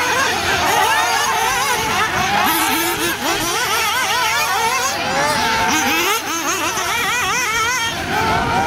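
Several 1/8-scale nitro RC buggies and truggies running at once, their small high-pitched engines revving up and easing off over and over, overlapping, as they brake and accelerate around the track.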